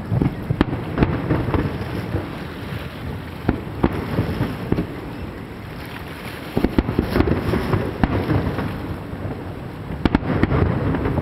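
Aerial firework shells bursting over the water in an irregular series of booms and cracks, with a quick cluster of several bursts about two-thirds of the way through.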